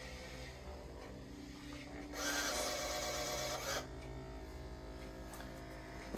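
iRobot Braava robot mop running across the floor with a steady low motor hum, a louder scrubbing, rasping stretch lasting under two seconds about two seconds in.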